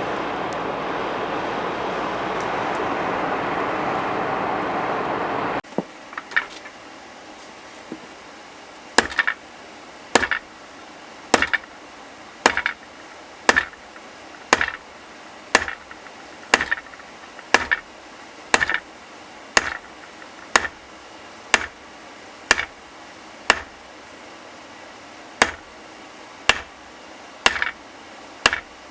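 A steady rushing roar cuts off abruptly about six seconds in. It is followed by hammer blows forging steel on an anvil, about one a second, many followed at once by a quick lighter second strike and a short metallic ring.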